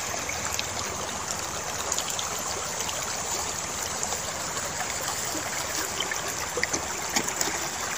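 Water running steadily along a small concrete irrigation channel, with a few light clicks about three-quarters of the way through.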